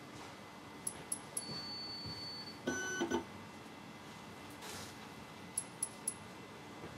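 ScanDrop spectrophotometer running a measurement cycle: three sharp ticks about a second in, then a thin high steady tone lasting about a second, and a short electronic beep a little before halfway. Three more sharp ticks come near the end.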